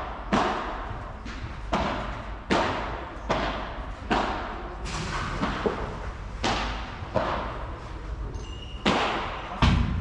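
Padel rally: a padel ball struck back and forth with solid padel rackets and bouncing on the court, about a dozen sharp knocks at a steady pace of roughly one a second, each with a short echo.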